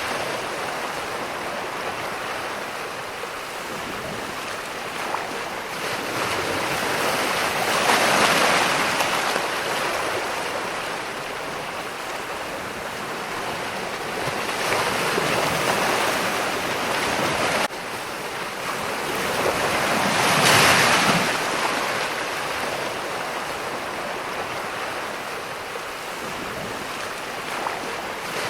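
Ocean waves washing in, a steady rush of surf that swells three times as waves break.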